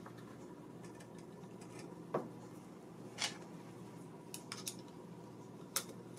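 A few separate small metallic clicks as .22 Short cartridges are pushed down into a steel rifle magazine with a screwdriver bit, the magazine nearly full and tight, over a steady faint background hum.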